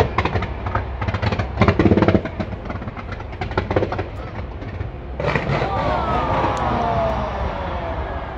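Fireworks going off: a quick string of sharp pops and crackles, then a fresh burst about five seconds in with several falling whistling tones, over a steady low rumble.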